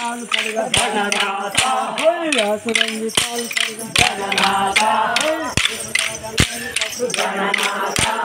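Men's voices singing a folk song together, with sticks struck in a steady beat, about one sharp strike every 0.8 seconds, for a stick dance.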